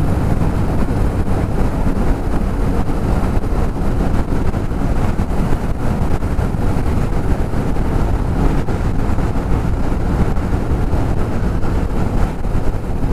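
A motorcycle riding steadily at road speed, heard from the rider's own microphone: a constant rush of wind and road noise with the engine running underneath.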